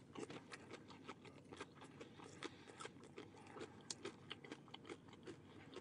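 Chewing a fried, breaded mozzarella stick with marinara sauce: faint, irregular clicks and crackles a few times a second.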